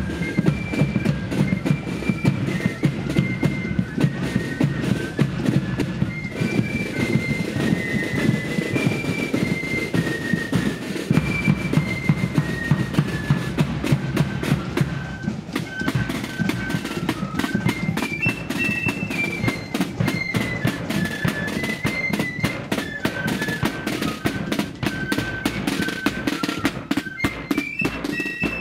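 Marching flute band playing a tune: a melody of short stepped notes on flutes over a steady rattle of snare drums.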